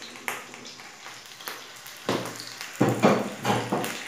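Sliced sausage pieces dropped into a frying pan of hot ghee, sizzling. A couple of light clicks come first, then louder bursts of sizzling from about two seconds in as the pieces land in the fat.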